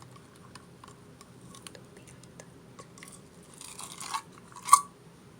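Close-up handling noises: scattered small clicks, a brief rustle a little before four seconds in, and one sharp tap near the end.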